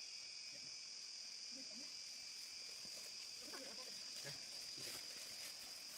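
Steady high-pitched insect drone, constant throughout.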